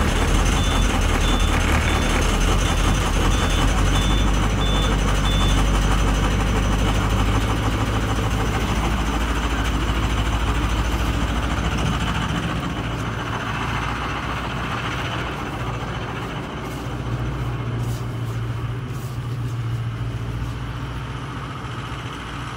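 School bus diesel engine idling after a cold start, its tachometer at about 500 rpm. It is heard first inside the cab, then fainter from outside toward the end. A high-pitched beeping repeats for about the first five seconds.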